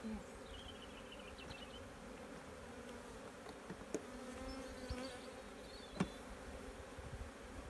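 Honeybees buzzing in a steady hum around open hives. Two sharp knocks, about four and six seconds in, as frames are set back into the wooden hive box.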